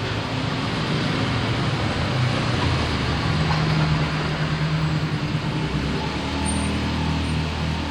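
Road traffic: vehicle engines running past with a continuous low hum and road noise.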